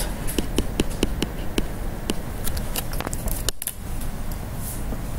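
A tablet PC stylus tapping and scratching on the screen during handwriting: a string of small, irregular clicks, a few a second.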